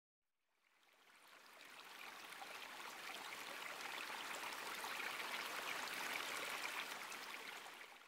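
A steady, stream-like rushing noise with fine crackle in it, fading in over the first couple of seconds and fading out near the end.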